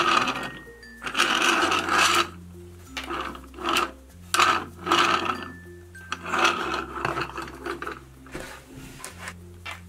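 Toy fire engine's wheels rolling and scraping across a tabletop in several short bursts, over soft background music with slow bass notes.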